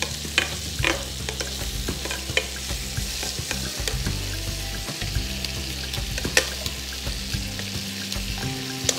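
Curry-coated pork pieces sizzling in butter in a sauté pan, with metal tongs clicking against the pan now and then as the meat is turned over.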